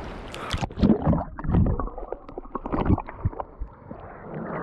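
Sea water splashing and sloshing around a camera held at the waterline by a swimmer. About a second in the sound turns muffled and gurgling as water covers the microphone, with irregular sloshes after that.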